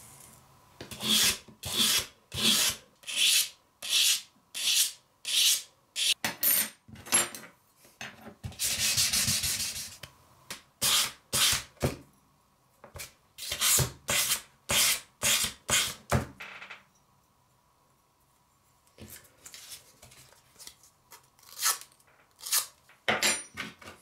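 Hand sanding on 400-grit sandpaper: rhythmic back-and-forth scratching strokes, about one and a half a second, with one longer steady rub near the middle. After a short pause, lighter, quieter strokes come in near the end.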